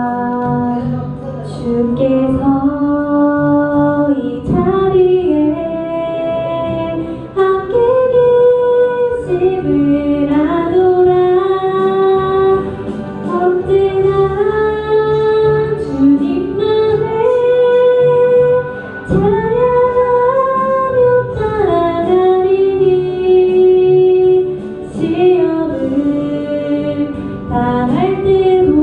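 A woman singing a slow melody in long held notes that glide between pitches.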